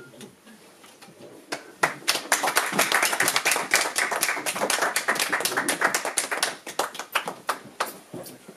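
Audience applauding: a few scattered claps, swelling into a full round of applause about two seconds in, then thinning out to a few last claps near the end.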